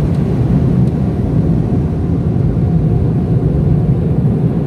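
Car wash air-dryer blowers running with a loud, steady rush, heard from inside the car during the drying stage at the end of the wash.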